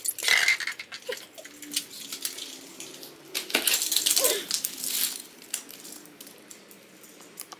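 Hard plastic toy robots clattering and clacking against each other as they are rummaged out of a basket and set down, in scattered clicks with quieter gaps between.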